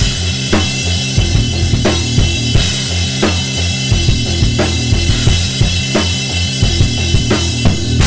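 Acoustic drum kit played in a steady groove: regular snare hits about every two-thirds of a second over bass drum and cymbals, with a bass line alternating between low notes underneath.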